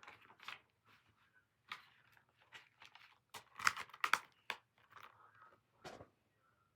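A paper insert and a plastic Blu-ray case being handled: irregular rustles and clicks, busiest about halfway through, with one sharper knock near the end.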